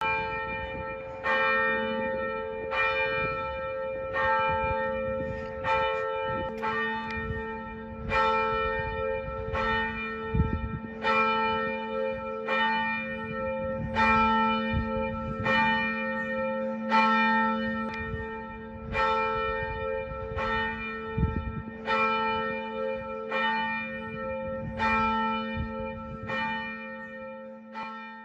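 Church bell tolling steadily, about one strike every second and a half, its hum ringing on between strikes.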